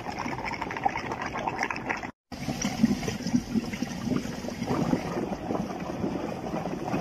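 Water trickling and gurgling up through waterlogged mud, a steady crackly bubbling that drops out for a moment about two seconds in.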